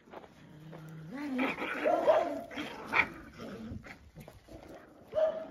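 Several dogs growling and yipping as they scuffle together, with one sharp bark about three seconds in.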